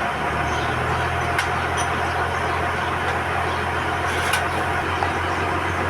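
A vehicle engine running steadily at idle, a constant low hum, with two faint metallic clicks about one and a half and four seconds in.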